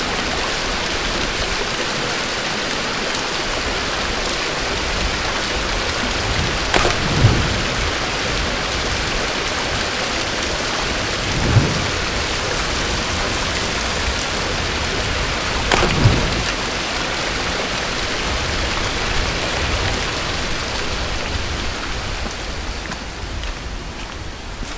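Steady rushing of a small waterfall and stream, easing a little near the end. Three dull thumps stand out over it.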